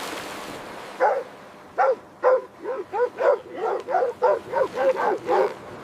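A seal barking repeatedly: a run of short, hoarse calls that come faster toward the end, after a brief hiss at the start.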